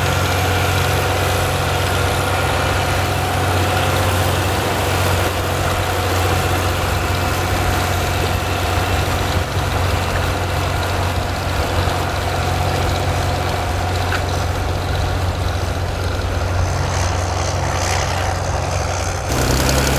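Petrol six-cylinder engine of a 1961 John Deere 4010 Row-Crop tractor running steadily, with a sudden change in its low tone near the end.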